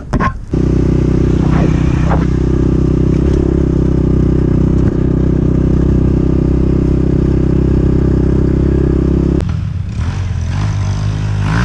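Dirt bike engine running at a steady speed, cutting off sharply about nine seconds in; near the end a dirt bike revs up and down.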